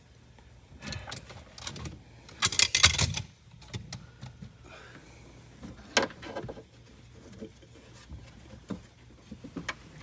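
Hands working at a car's wiring harness and interior trim: scattered rustles, knocks and clicks, loudest in a cluster about two and a half to three seconds in, with a sharp click about six seconds in.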